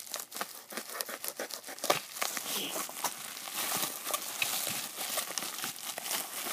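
Bubble wrap crinkling and crackling in the hands as a small package is unwrapped: many quick, sharp crackles.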